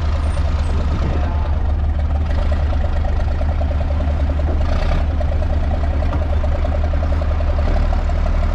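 Truck engine running steadily with road noise, a constant low drone, with a brief hiss about five seconds in.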